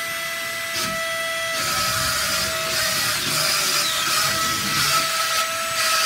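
Wall-climbing remote-control toy car's suction fan running with a steady whine over a rushing hiss, as the car climbs a wall. The hiss grows louder about a second and a half in.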